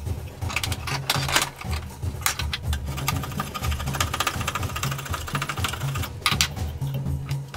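A hand file rasping back and forth across a wooden hatchet handle in repeated strokes, fastest and densest about halfway through. Background music with a steady bass line plays underneath.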